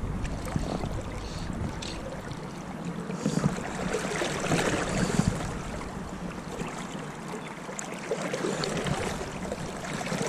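River current running high and flowing steadily, with wind buffeting the microphone in the first few seconds.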